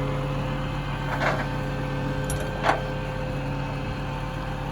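A tow truck's engine idling steadily, with two brief sharp noises about a second and a half apart.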